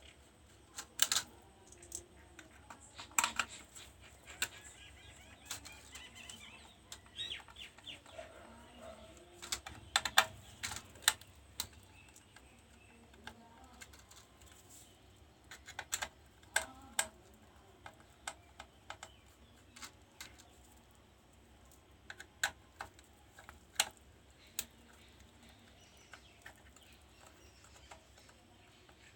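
Scattered sharp clicks and taps, some in quick little clusters, from tools and the plastic parts of an induction cooktop being handled during its repair.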